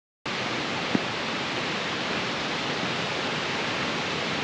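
Steady rush of a waterfall's falling water, starting abruptly a moment in, with one short knock about a second in.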